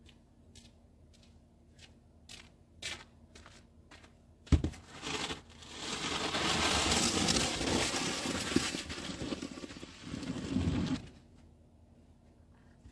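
Snow shovel scraping across pavement as it pushes snow: a long, noisy scrape of several seconds, with a sharp knock shortly before it and a few faint crunchy ticks at the start.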